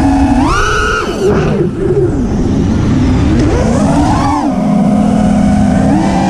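FPV freestyle quadcopter's brushless motors and propellers whining. The pitch jumps up sharply about half a second in, drops and rises again between about two and four seconds in, then holds steady near the end.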